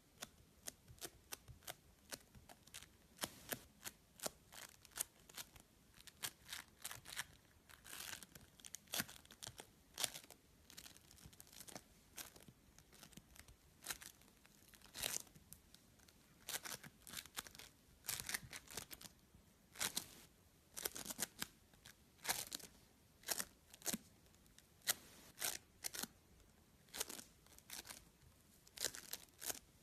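Yellow floam (foam-bead slime) pressed and squeezed under fingers, its beads crackling and popping in short sharp crackles, a few a second.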